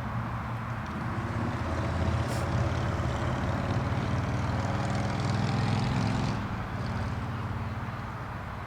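An engine running steadily, a little louder until about six seconds in, then easing off.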